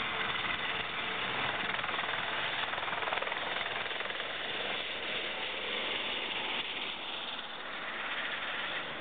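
Helicopter taking off and climbing away: steady turbine and rotor noise, easing slightly about two-thirds of the way through.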